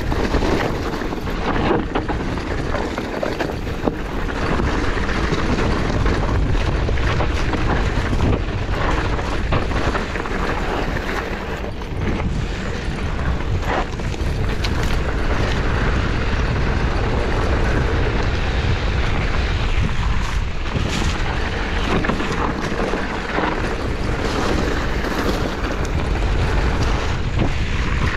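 Wind rushing over the microphone as a mountain bike rides a dirt singletrack, with the tyres rolling on dirt and frequent clicks and rattles from the bike going over bumps.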